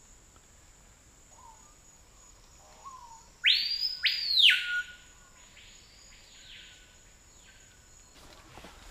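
A bird gives two loud whistled notes in quick succession about three and a half seconds in, each sweeping sharply up and sliding back down. Fainter notes of the same shape follow twice, as if from farther off.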